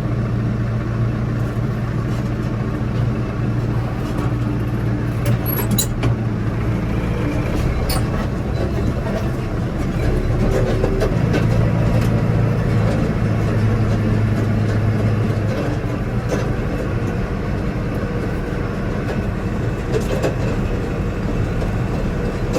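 Tractor engine running steadily under load while pulling a round baler through hay, with the engine note shifting slightly about halfway through and a few light knocks from the machinery.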